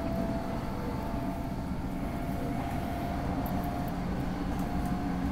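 Train running at speed, heard from inside the passenger car: a steady low rumble with a thin steady whine above it.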